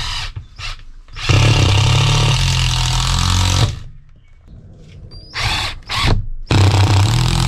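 Makita cordless impact driver driving screws through wooden battens: a couple of short blips, then a steady run of about two and a half seconds that drops in pitch partway, two more short blips, and another run of about a second near the end.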